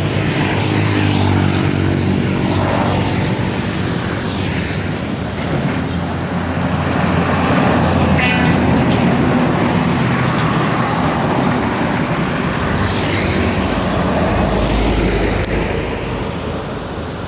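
Buses and trucks passing close by on a busy highway, engine and tyre noise swelling and fading as each one goes by. A deep engine drone is strongest near the start, and a heavy low rumble passes near the end.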